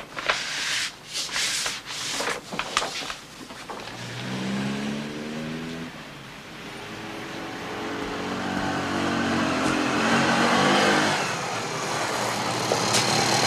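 Rustling and clicking for the first few seconds, then a small motor scooter engine running. It revs up about four seconds in, eases off, and revs up again, loudest a little before the end.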